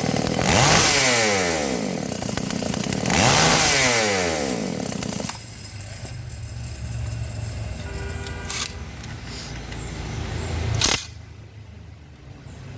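Two-stroke chainsaw engine revved up and back down twice, then running at idle before it cuts out about eleven seconds in: the saw being test-run on its newly fitted carburettor.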